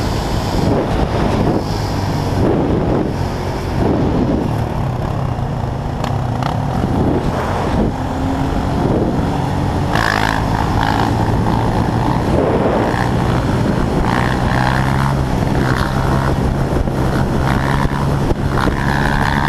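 Sport quad engines running under way, with wind noise on the microphone. The revs rise and fall repeatedly in the first half, then settle into a steadier cruise from about halfway.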